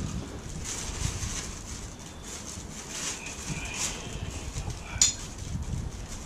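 Hand-tool handling noises from motorcycle rear chain adjustment: irregular metal knocks and scrapes, with one sharp metallic click about five seconds in.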